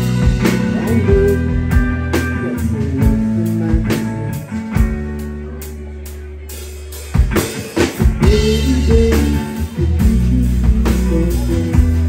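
Live rock trio playing an instrumental passage on electric guitar, electric bass and drum kit. About five seconds in the drums drop out and a held chord fades. The full band comes back in at about seven seconds.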